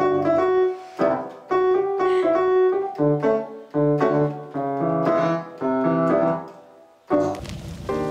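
Electronic keyboard played with a piano sound: a short phrase of chords struck roughly once a second, each left to ring and fade. About seven seconds in, a fuller recorded track with drums takes over.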